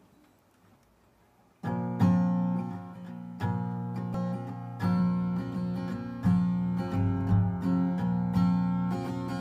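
Acoustic guitar strumming chords, starting about one and a half seconds in after near silence, the chords ringing between strokes.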